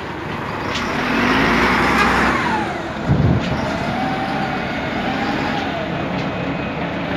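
Large diesel container-handler forklift running under load, with a swell of hiss about a second in, a heavy low thump around three seconds in, and a whine that rises and falls near the end.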